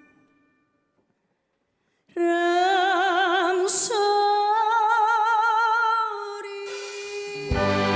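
Song music: after a brief silence, a woman's voice sings two long held notes with vibrato, unaccompanied. Near the end, band accompaniment with a deep bass comes in.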